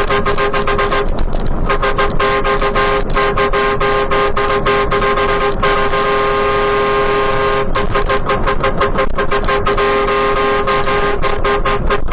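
A car horn held down almost without let-up, its two notes steady, with many brief stuttering breaks where it cuts in and out.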